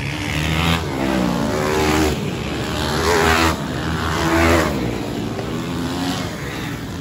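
Motocross dirt bike engines revving hard as the bikes pass, the pitch climbing and dropping again and again with throttle and gear changes.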